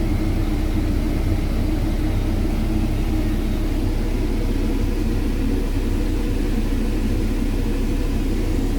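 Caterpillar 312 excavator's diesel engine idling steadily, heard from inside the operator's cab.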